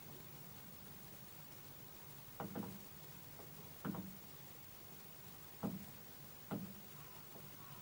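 Four short, sharp taps spread over a few seconds, over a faint low hum: a goldfinch feeding at a plastic tray of sunflower seeds.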